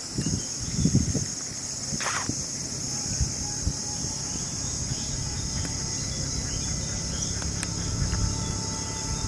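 Steady high-pitched drone of an insect chorus, over a low rumble, with one short sharp noise about two seconds in.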